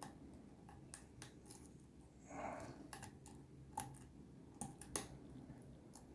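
Faint, scattered light clicks of a lock pick and tension tool working the pins of an ABUS Extreme 83WP/53 six-pin padlock, with a brief soft rustle about two and a half seconds in.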